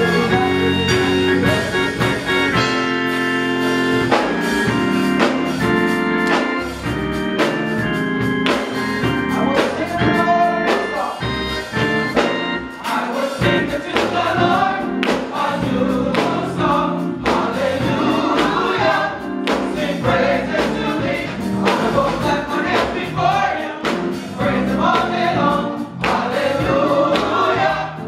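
Gospel choir singing a praise song with instrumental accompaniment and a steady drum beat, the choir's voices coming through more strongly from about halfway through.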